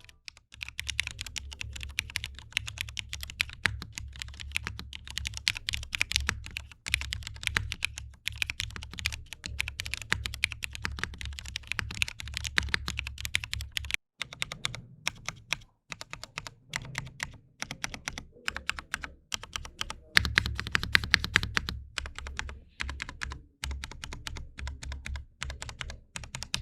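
KBDfans Tofu TKL tenkeyless mechanical keyboard being typed on: a fast, continuous run of keystrokes with a few short pauses.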